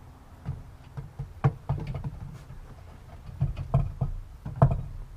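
Irregular knocks and clinks of hard parts being moved about during a search for loose suspension bolts, about six in all, the loudest about a second and a half in and near the end.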